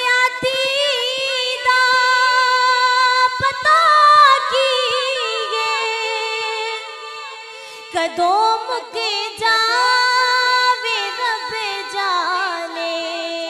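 A woman singing a naat, an Islamic devotional song, unaccompanied into a microphone. Her notes are long, held and ornamented. The singing goes softer for a couple of seconds near the middle, and a new, louder phrase begins about eight seconds in.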